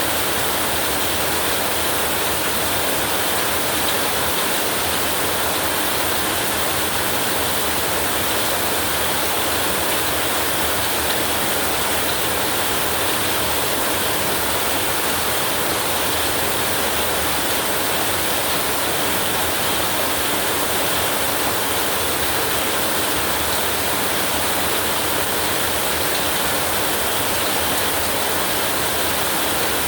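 Heavy rain falling in a dense, steady hiss that never changes in level, with no thunder.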